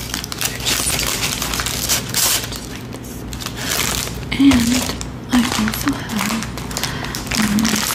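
Foil snack wrapper crinkling and crackling as it is unwrapped by hand, in sharp bursts through the first couple of seconds, with soft speech from about halfway through.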